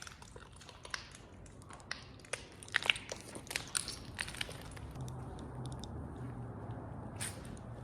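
Footsteps crunching over debris: irregular crunches and clicks that thin out after about four seconds, when a faint low hum comes in.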